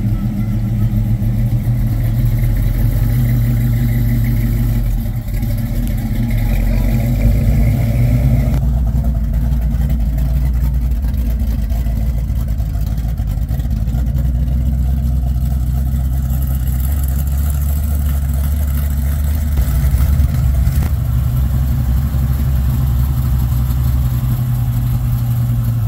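Classic car engines running, a steady low rumble of idling and pulling away, with the pitch of the drone shifting about a third of the way in and again near the end.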